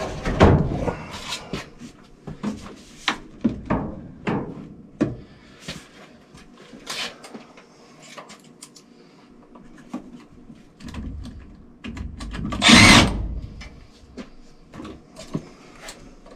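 Hand-work clatter: scattered clicks and knocks of tools and PVC drain pipe being handled at a furnace, with one louder, longer noise lasting about a second and a half around twelve seconds in.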